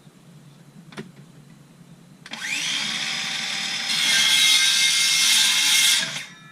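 A power tool spins up with a rising whine about two seconds in and runs steadily for about four seconds. It gets louder halfway through, then cuts off.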